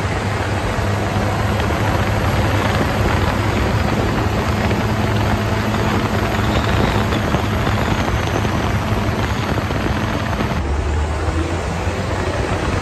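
Second-generation 5.9 Cummins diesel pickup driving on the road, heard from the cab with the driver's window open: a steady engine drone under heavy wind and road noise. The engine note changes near the end.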